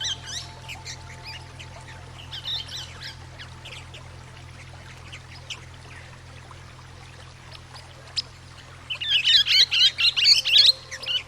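Swift parrots calling: scattered sharp, high calls, then a loud burst of rapid chattering about nine seconds in. Underneath are a steady low drone and running water.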